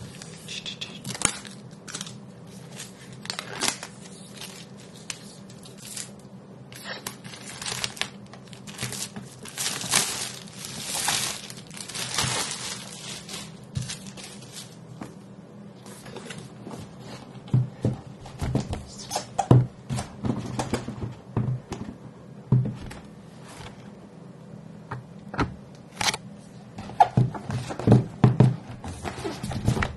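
Plastic shrink-wrap on a MacBook Pro box being torn open along its pull strip and peeled off, the film crinkling and rustling, loudest for a few seconds near the middle. Later come scattered knocks and taps as the cardboard box is handled.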